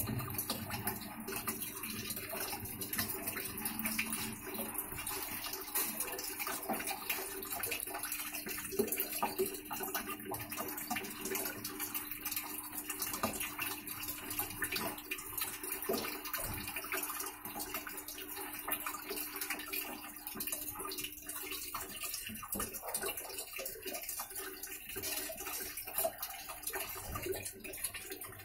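Midea MWMTL062M31 top-load washing machine running with water in its tub: a steady rush of water with a low steady hum underneath, during a check for a reported gearbox noise in wash and spin.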